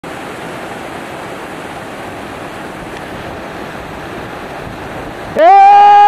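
Steady rushing of a tall waterfall crashing down a rock face. Near the end a man breaks in with a loud, long-held shout.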